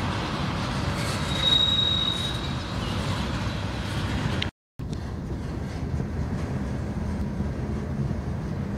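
Freight cars rolling past at close range: a steady rumble of wheels on rail, with a thin, high wheel squeal starting about a second in and lasting about a second and a half. The sound cuts out for a moment midway, then the rumble resumes.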